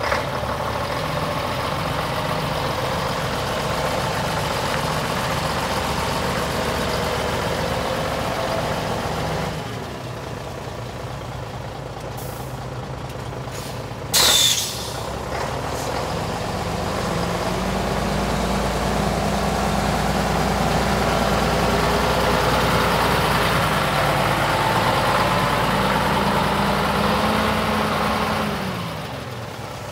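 Scania 113H truck's diesel engine idling steadily, with a short, loud hiss of air about halfway through. From just past halfway the engine runs at raised revs and heavier, then drops back toward idle near the end.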